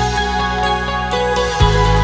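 Background music of steady held chords over a low bass. A regular low drum beat comes in about one and a half seconds in.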